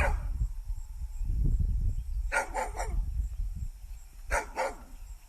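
A dog barking in short bursts: three quick barks about two seconds in and two more near the end, over a low rumble.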